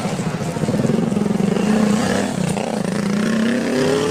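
Small motorcycle engine running close by, its note climbing in pitch near the end.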